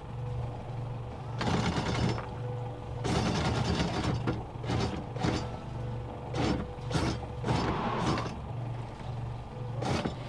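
Anchor windlass hauling in the anchor chain: a steady motor hum with repeated irregular clanks and rattles of chain links running over the windlass and bow roller as the stainless anchor comes up to the bow.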